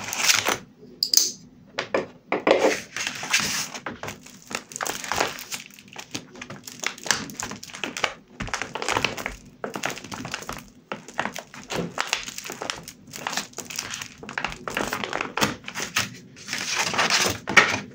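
A glue stick rubbed across a paper journal page in repeated short scratchy strokes, with paper rustling as a torn sheet of paper is laid on and pressed flat.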